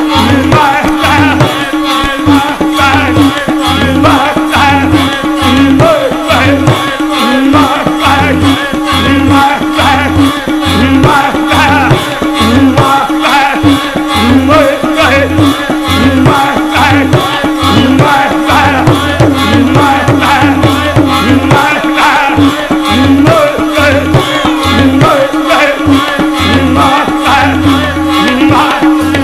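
Sikh kirtan simran: harmonium holding steady chords and tabla-type drums keeping a regular beat, while voices chant "Waheguru" in rhythm with them.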